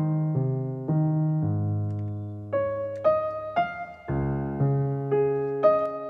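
Background music: an electric piano playing a melody of notes over a lower bass line, with a new note about every half second.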